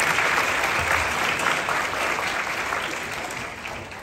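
Audience applauding, the clapping thinning out and dying away over the last second or so.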